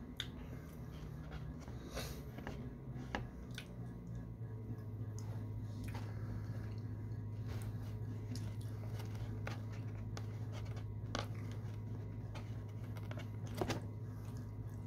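Close mouth sounds of someone eating apple pie with cream: chewing, wet smacks and finger-licking clicks at irregular intervals. A steady low hum sits underneath and grows louder about four seconds in.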